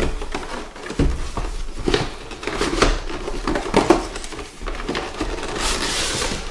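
Cardboard box being opened by hand and a clear plastic packaging tray pulled out: rustling and scraping with several sharp knocks, and a longer sliding hiss near the end.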